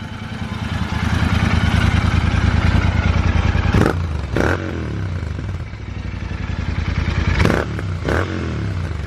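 Royal Enfield Interceptor 650's 648 cc parallel-twin engine through aftermarket Gursewak exhaust silencers with dB killers fitted, revving up and settling back twice, with a few sharp cracks around the drops.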